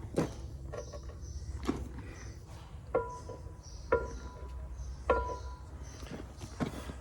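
Metal striking steel: about six sharp, ringing clanks roughly a second apart, as a heavy combine wheel is worked onto its axle.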